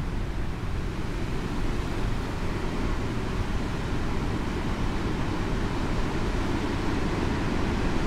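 Heavy ocean surf breaking and washing around shoreline rocks: a continuous low rumble of waves that swells slightly in the second half.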